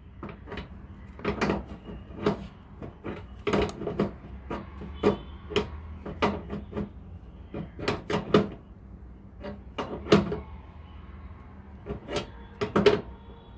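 Adjustable wrench clinking against the brass flare nuts of a split AC outdoor unit's service valves as the pipe connections are tightened. It makes irregular sharp metallic clicks, about two a second, with a short pause before a last few.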